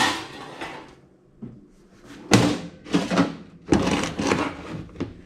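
Toaster oven's wire rack being pulled out and handled: metal clanks and knocks, one sharp knock at the start and a run of clanks from about two seconds in.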